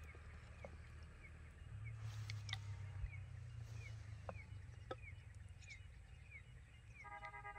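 A small bird chirping over and over, with short falling chirps about twice a second, faint against the outdoor background. A few light clicks of a ladle against clay bowls are also heard.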